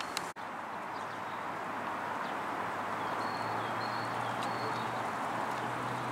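Outdoor park ambience: a steady background rush, with a few short, high bird chirps about three to four and a half seconds in.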